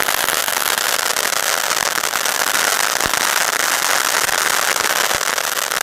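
'Terminator' Diwali spark-spraying stick firework burning, a steady fizzing hiss thick with fine crackles and a few sharper pops as it throws out sparks.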